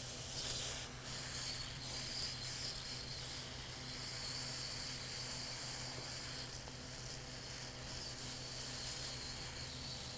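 Hot nitrogen gas hissing steadily from a nitrogen plastic welder's nozzle as it melts a round plastic welding rod onto a headlight tab, with a low steady hum underneath.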